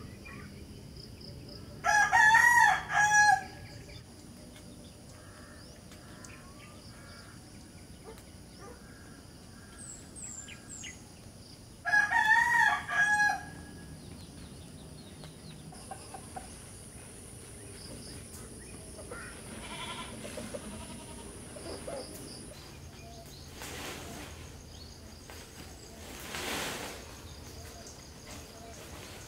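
A rooster crows twice, about ten seconds apart, each crow a loud call of a second or so in several parts. A faint, steady, high-pitched insect drone runs underneath, with a brief rushing noise near the end.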